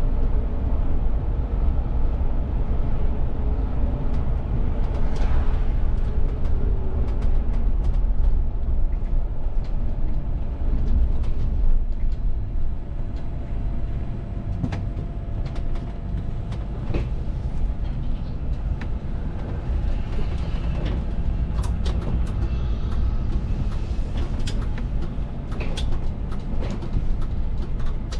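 VDL city bus driving, heard from the driver's cab: a steady low engine and road rumble, with scattered clicks and rattles from the cab and body.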